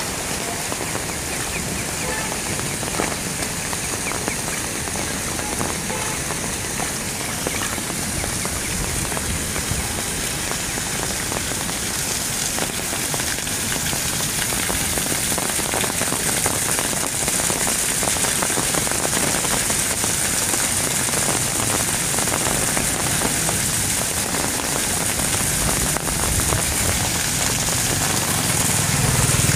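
Heavy monsoon rain pouring onto a street, a steady hiss that grows a little louder about halfway through. Near the end a vehicle engine's low hum comes in under the rain.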